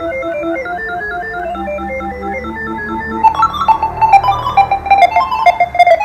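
Instrumental music: a keyboard melody of short, stepping notes with an organ-like sound, joined about three seconds in by sharp, clicky percussive accents.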